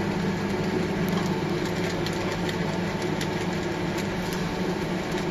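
Wave soldering machine running: a steady mechanical hum with scattered light ticks as its conveyor carries a circuit board.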